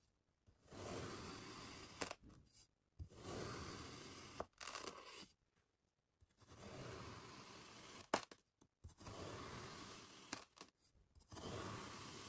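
Kitchen knife slicing down through molded kinetic sand: a series of soft, gritty crunches, each stroke lasting about a second, with short silences between them. A few sharp ticks come between strokes, the loudest about eight seconds in.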